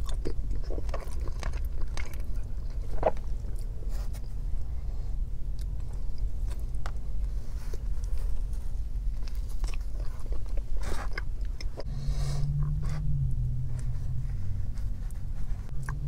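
Close-miked chewing and biting of soft food, with wet mouth clicks and smacks: first a forkful of chicken and dumplings, then bites of a soft biscuit. A steady low rumble runs underneath.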